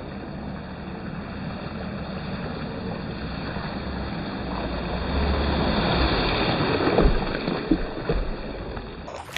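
Rushing water and wind noise through a muffled, narrow-range action-camera microphone. It grows louder about halfway through, with a sharp knock about seven seconds in.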